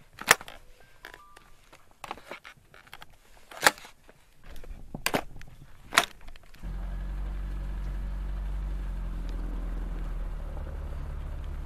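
A handful of sharp clicks, like ski boots snapping into ski bindings. About two-thirds of the way in, this gives way to the steady low hum of a car engine running.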